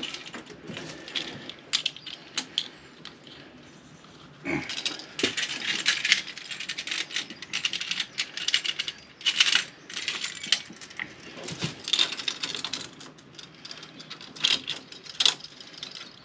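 Irregular metallic clicks and clinks of hose couplings being fitted and clipped onto a MagnaClean filter's flush adapter, with handling noise from the flushing hoses. The fittings are being connected for a central-heating system flush.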